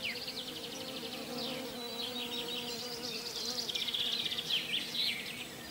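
A flying insect buzzing with a steady hum that wavers in pitch a few seconds in, while birds sing rapid trills and short falling notes above it.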